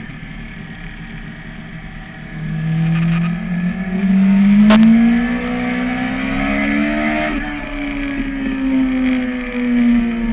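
Sport motorcycle engine heard from the rider's seat: a low steady note at first, then pulling harder from about two seconds in with its pitch rising, and holding a steady higher note at road speed. A single short click about five seconds in.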